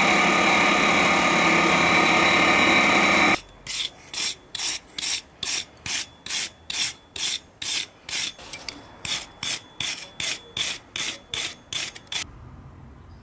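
A steady mechanical drone that cuts off abruptly about three seconds in. Then a wire brush scrubs forged steel on an anvil in quick back-and-forth strokes, about two a second, cleaning off forge scale, and stops near the end.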